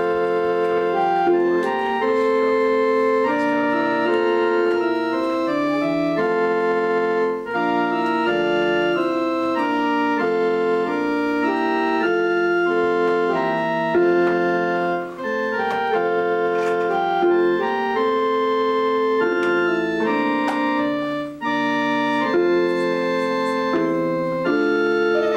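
Organ music: sustained chords held steady and changing about once a second, with brief breaks between phrases.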